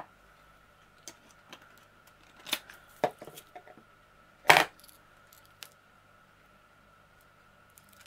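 Scattered sharp clicks and clacks of small hard plastic pieces being handled: resin diamond painting drills and their little storage pots. The loudest single knock comes about four and a half seconds in.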